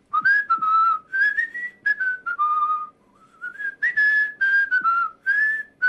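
A man whistling a cheerful, wandering tune of short notes that step up and down, with a brief break near the middle. He whistles on both the in-breath and the out-breath.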